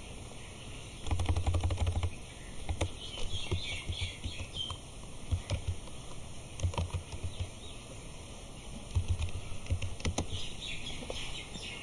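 Computer keyboard being typed on: an uneven run of key clicks, with a quick burst of rapid key presses about a second in.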